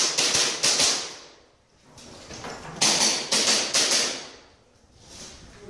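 Custom Tokyo Marui Hi-Capa gas blowback airsoft pistol firing in rapid strings: about five quick shots in the first second, a pause, then another rapid string of about five shots near the three-second mark.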